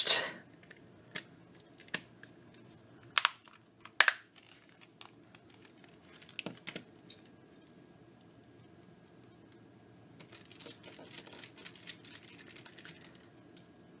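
Sharp plastic clicks and snaps from a Panasonic KX-TGA680 cordless phone handset's plastic housing as it is handled and pressed together, about six in the first seven seconds, the loudest about four seconds in. Later comes a faint scratching of a small screwdriver working screws at the back of the handset.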